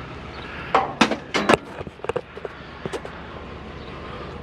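Discarded items being handled and shifted in a scrap pile: a quick run of four or five sharp knocks and clatters about a second in, then a few lighter clicks, over a steady background hum.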